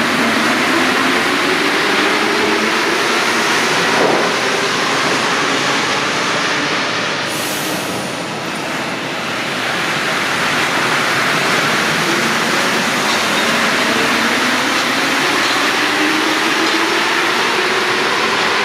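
Paris Métro MP73 rubber-tyred trains running through a station: steady rolling noise with a motor whine that rises and falls in pitch. There is a sharp clank about four seconds in and a short high hiss near eight seconds.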